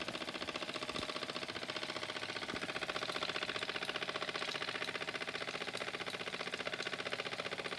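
Mamod SE1A toy steam engine running fast, its single oscillating cylinder exhausting in rapid, even beats, more than ten a second, over a steady hiss of steam.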